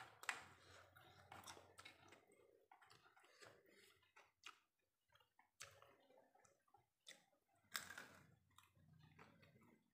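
Faint eating sounds: fingers mixing rice and cooked papaya leaves on a plate, with short scattered clicks, and a louder mouthful near the end.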